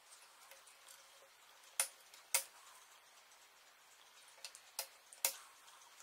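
RAM modules being pressed down into a 2012 MacBook Pro's memory slots and snapping into the retaining clips: two sharp clicks about half a second apart near the middle, then a few lighter clicks toward the end.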